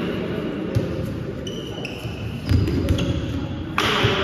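A netball thudding a few times as it is caught and bounced on an indoor court, with short high squeaks of trainers on the floor, echoing in a large sports hall.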